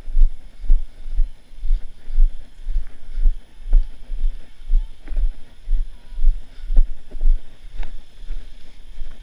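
Running footfalls on a dirt trail, heard as regular low thumps about two a second as each stride jolts a body-worn camera.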